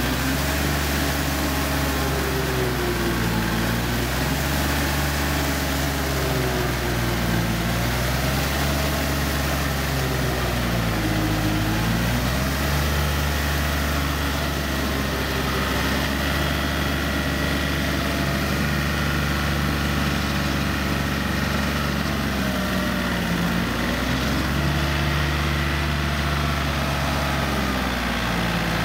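Yanmar EF393T tractor's diesel engine running steadily while it drives a rear rotary tiller through a wet rice paddy. The engine note dips briefly and recovers several times.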